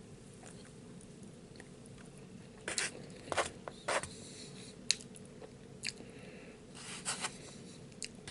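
Someone eating a tamale dinner: chewing and mouth sounds, with a handful of short clicks and scrapes from about three to seven seconds in.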